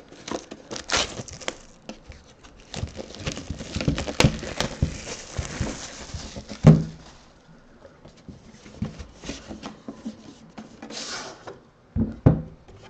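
Crinkly plastic shrink wrap and a cardboard trading-card box being handled and slid apart, a run of rustling with a sharp knock a little past halfway and two more knocks near the end.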